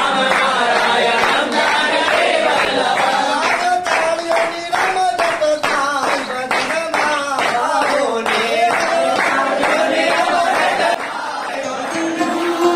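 A group of men singing a devotional song together, clapping hands in a steady beat. Near the end the singing gives way to a held instrumental tone.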